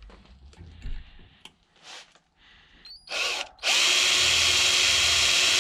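Power drill boring a new pivot hole through a brake pedal arm: a few light handling clicks, a short spin-up about three seconds in, then the drill runs steadily and loudly into the metal.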